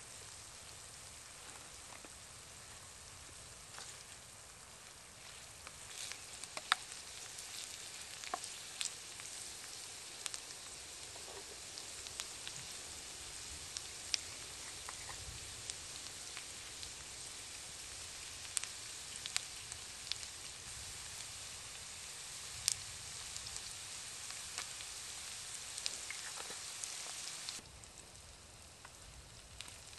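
Potatoes, onion and meat frying in a skillet: a steady sizzle with scattered sharp pops, dropping quieter suddenly near the end.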